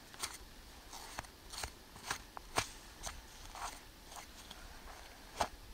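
A homemade railroad-spike knife slicing through a doe's belly hide to open it for field dressing: a faint string of short cutting and rustling strokes, about two a second and unevenly spaced.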